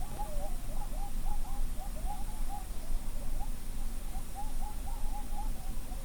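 A rapid run of short, wavering, high-pitched animal calls overlapping one another, thinning out for a moment mid-way, over a steady low hum.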